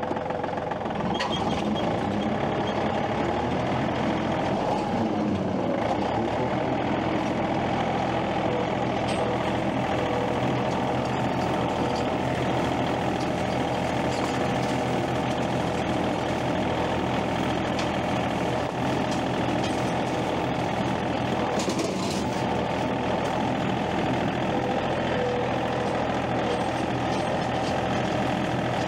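An engine running steadily throughout, with brief wavers in pitch.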